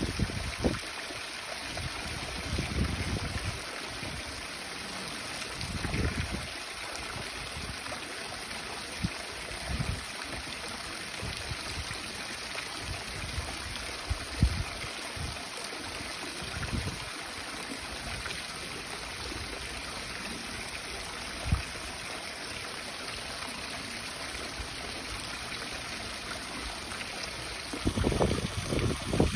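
Steady hiss of running water, with occasional short low thumps.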